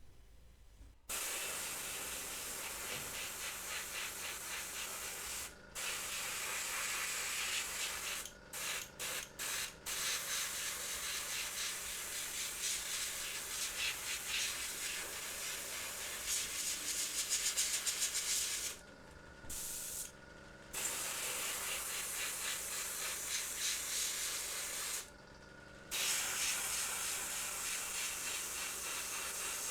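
A paintbrush dry-brushing and scrubbing paint onto a resin miniature, a continuous hissing rub of bristles on the surface. It stops abruptly a few times, briefly near 6 s, several times around 8–10 s, and for about a second around 19, 21 and 25 s.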